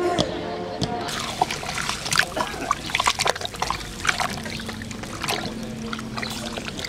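Meat frying in fat in a goulash kettle: a dense, irregular sizzle with sharp spitting crackles.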